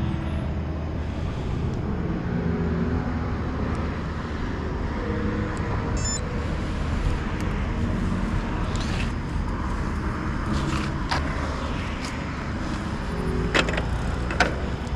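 Steady low rumble of motor-vehicle traffic, with engine hum coming and going and a few sharp clicks near the end.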